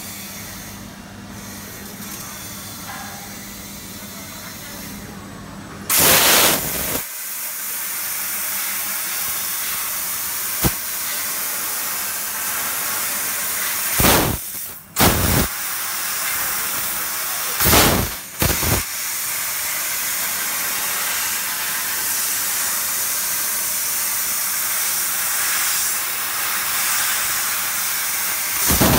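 Fiber laser cutting machine cutting 2 mm stainless steel sheet: a loud steady hiss from the cutting head starts about six seconds in and carries on, with a few short louder blasts.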